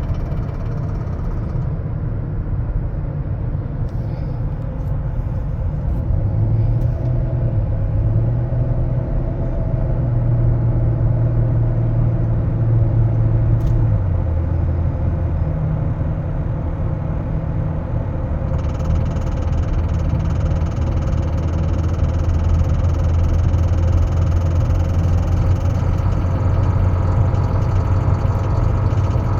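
2008 Chrysler 300 running, its engine a steady low drone whose pitch steps a couple of times, about six and fourteen seconds in, with more hiss added from about eighteen seconds. The car has a rattle whose source the owner is trying to find.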